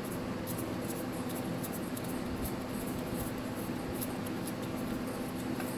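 Faint light clicks and scraping of a Husqvarna 450 chainsaw's loosened clutch being turned by hand on its threads, over a steady low hum.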